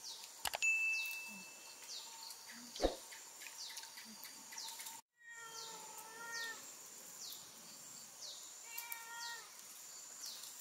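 A cat meowing: a few drawn-out calls about halfway through and again near the end, over repeated short high chirps. A few sharp knocks sound in the first three seconds.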